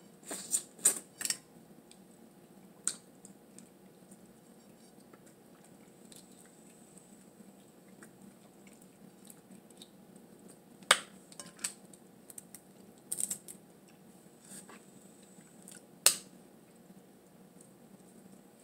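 Boiled blue crab shell being cracked and picked apart by hand, with some chewing: a handful of sharp cracks and clicks scattered through a quiet stretch, a quick cluster in the first second or so and single loud cracks about eleven and sixteen seconds in.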